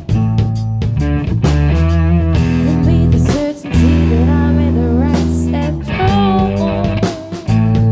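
Rough demo recording of a stoner rock band playing a song: guitar, drums and a wavering lead melody over sustained low notes. The band breaks off briefly twice, about midway and near the end.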